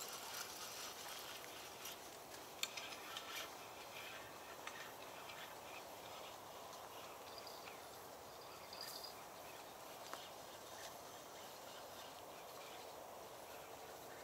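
Quiet riverbank background with a faint steady hiss. In the first few seconds after a cast there are a few soft clicks and rustles from the fishing rod, reel and line being handled, and one more faint click later on.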